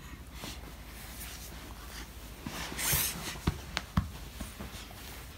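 Hands rustling and patting on quilted bedding: a brief rustle about three seconds in, then three light taps in quick succession.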